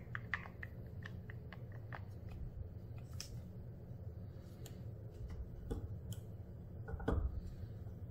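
Scattered light clicks and taps of a stirrer against a small plastic cup as black paint is mixed, with a few louder taps about seven seconds in, over a steady low hum.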